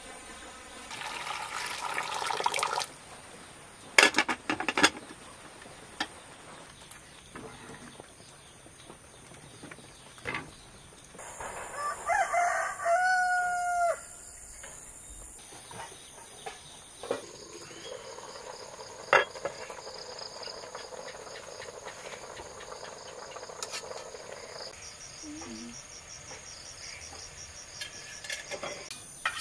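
A rooster crows once, about twelve seconds in. Earlier there is a rustle and then a few sharp knocks about four seconds in, with another single knock later.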